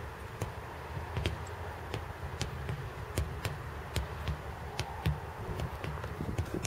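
Sledgehammers striking large tractor tyres: a run of sharp, irregular knocks, about three a second, from two people hammering at once.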